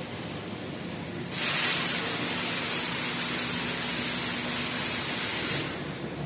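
Factory machinery of a pet food production line running with a steady hum. A loud, even hiss starts abruptly about a second in and cuts off suddenly about four seconds later.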